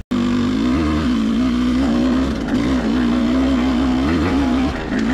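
Off-road dirt bike engine running under load on the trail, its pitch rising and falling repeatedly with the throttle.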